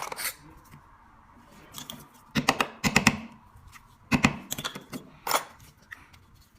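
Sharp metallic clicks and taps from a flint petrol lighter being worked on by hand: a quick cluster a couple of seconds in, then single clicks about a second apart.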